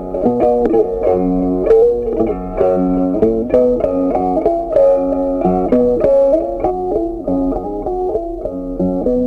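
Instrumental background music led by a plucked guitar, a tune of short notes moving steadily from one to the next.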